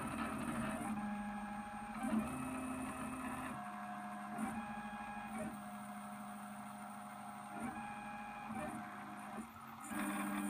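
Stepper motors of a CNC drawing machine (pen plotter) whining through a series of moves. The whine holds one steady pitch per move and jumps to a new pitch every second or so, with short ticks where one move changes to the next.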